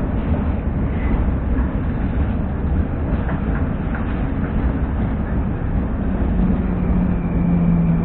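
Metro train running on rails, heard from inside the car: a steady rumble and track noise as it pulls into a station, with a steady electric hum coming in near the end.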